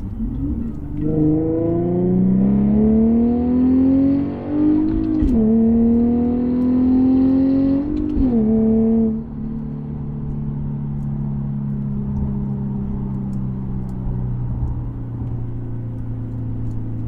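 Infiniti G37S sedan's 3.7-litre VQ V6 with aftermarket exhaust, accelerating hard through the gears of its six-speed manual. The revs climb, drop at quick upshifts about four and a half and eight seconds in, and after about nine seconds it settles into a steady cruising drone.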